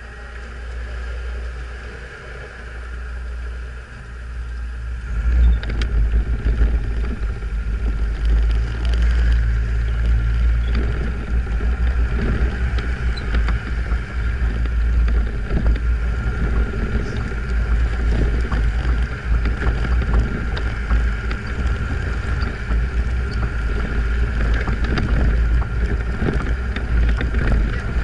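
Off-road 4x4 running and then pulling away about five seconds in to drive over packed snow. From there on, a steady low rumble of engine and wind buffeting the outside-mounted camera's microphone.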